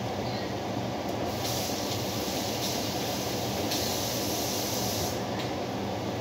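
Chicken skewers sizzling on a tabletop grill over a steady background running noise. The hissing sizzle grows louder about a second and a half in and drops back near the end.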